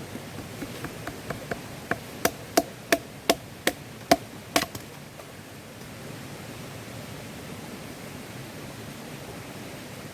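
A quick run of sharp wooden knocks, about three a second and growing louder, then stopping about four and a half seconds in: a small knife blade being batoned through a stick of firewood.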